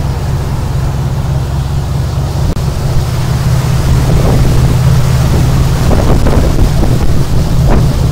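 Tour boat's engine running steadily, a loud low drone, with wind buffeting the microphone.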